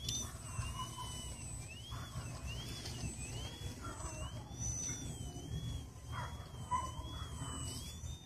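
Electric motor and propeller of a Twisted Hobbys Extra Slick foam 3D model plane hovering on its prop, a high whine that rises and falls every half second or so as the throttle is worked, then holds steadier with small wobbles in the second half.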